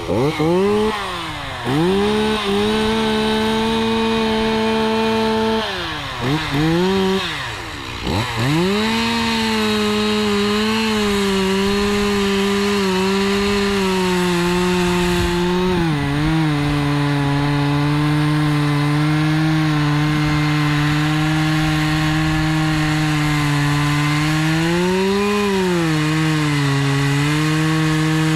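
Stihl MS260 two-stroke chainsaw blipped up and down several times, then held at full throttle through a long cut into wood. Its pitch drops as it comes under load about halfway through and rises briefly once near the end.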